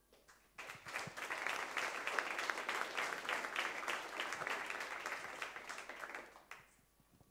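Audience applauding: many hands clapping, starting about half a second in and dying away near the end.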